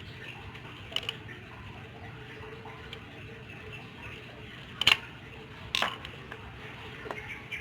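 Four short, sharp clicks and clinks of parts being handled, over a steady low hum.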